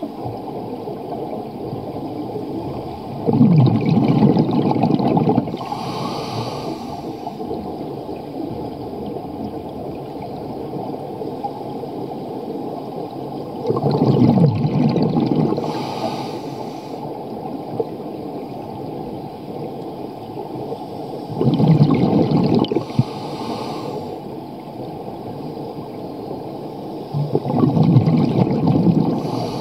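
Scuba regulator breathing heard underwater: four bursts of exhaled bubbles, one about every seven seconds, each followed by a short high hiss, over a steady underwater hiss.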